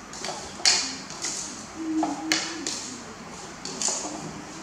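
Blue plastic spoon stirring chopped food in a ceramic bowl, scraping and knocking against the bowl in a few sharp clicks about a second and a half apart.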